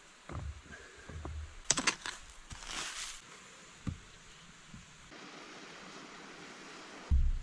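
Flat stones knocked and clacked against each other while being stacked into a dry-stone wall, with a sharp cluster of clinks about two seconds in and a scraping swish after it. Later a steady hiss takes over, and a heavy thump comes near the end.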